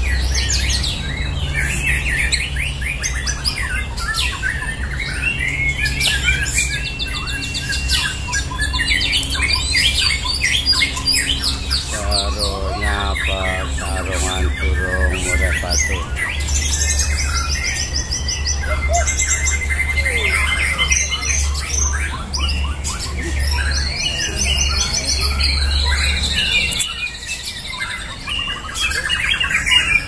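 Several caged white-rumped shamas (murai batu) singing against each other in a song contest: dense, overlapping whistles, chirps and fast trills of rapidly repeated high notes. A steady low hum runs underneath and stops near the end.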